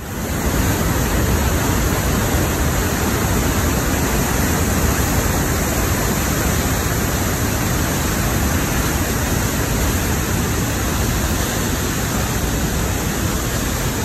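Tännforsen, a large waterfall, giving a loud, steady rushing roar of falling white water with no letup.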